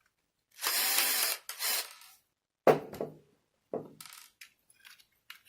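A power screwdriver runs in two short bursts, driving the screws of a door lock's front panel. Then come a few sharp metal knocks and a run of small clicks as the lock parts are handled.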